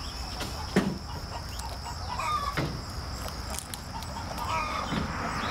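Hens clucking softly and intermittently, a few short clucks, with a sharp tap about a second in and a fainter one later.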